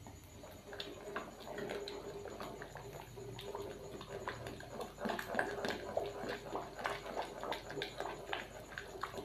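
Wooden spoon stirring thin soup in an aluminium wok: liquid sloshing, with the spoon ticking and knocking against the pan in quick irregular taps. The stirring grows louder from about halfway.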